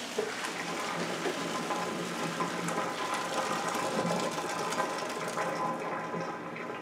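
Noodle cooking water poured from a pot through a plastic colander, splashing and draining into a stainless steel sink in a steady rush.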